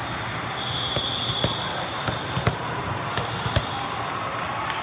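Sharp thuds and slaps of volleyballs being hit and bouncing in a big sports hall: about six impacts at irregular intervals over a steady hall din. A short, steady high whistle sounds about half a second in.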